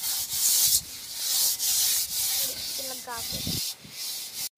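A hand scrubbing the inside of an aluminium cooking pot with sand, giving a rough, hissing scrape in repeated strokes.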